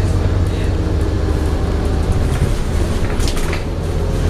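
Scania N230UD double-decker bus under way, heard from the upper deck: the 9.3-litre five-cylinder diesel engine and drivetrain running with a steady low drone and road noise, and a few brief clicks about three seconds in.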